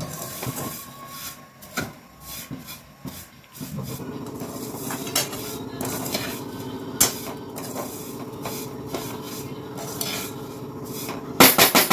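Perforated metal skimmer scraping and turning roasted vermicelli around a metal kadhai, with scattered clinks of metal on metal. A steady low hum comes in about four seconds in, and there are a few loud clanks near the end.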